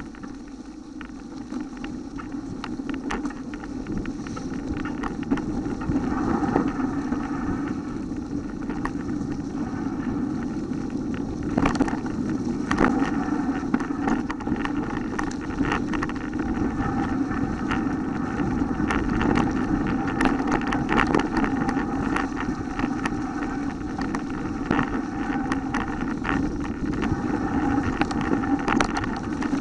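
Mountain bike riding over a leaf-covered forest dirt trail: a steady rumble of tyre and wind noise, with frequent sharp clicks and rattles from the bike jolting over bumps. It grows louder over the first several seconds as the pace picks up.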